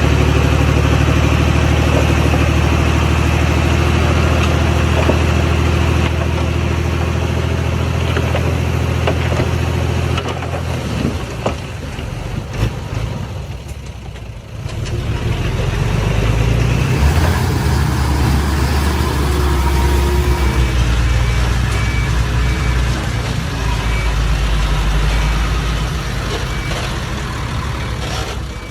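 Diesel engine of a heavy earthmoving machine running steadily, dropping away for a few seconds about halfway through, then running again with changing revs. A faint regular beeping comes in during the last third.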